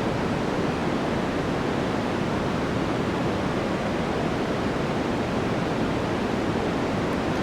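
Synthetic white noise played back as a steady, unchanging hiss, sounding like heavy rain.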